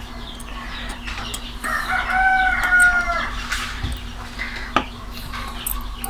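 A rooster crowing once: one drawn-out call of about a second and a half around the middle, dipping slightly at its end. Small clicks come from the screw of a fiber-optic cleaver being turned by hand.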